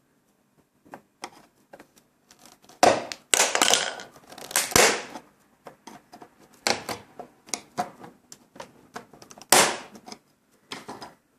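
Plastic snap-in clips of a Samsung SyncMaster T240 LCD monitor's casing clicking and cracking as the bezel is pried apart with a screwdriver: irregular sharp snaps, several of them loud, with short pauses between.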